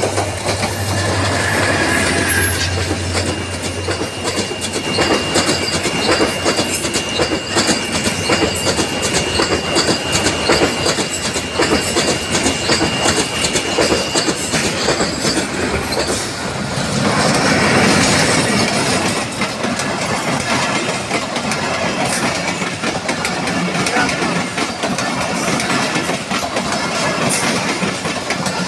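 Bangladesh Railway intercity passenger coaches passing close by, wheels clattering steadily over the rail joints with a continuous rumble. A thin steady high-pitched whine runs through the first half, and the rumble swells for a couple of seconds past the middle.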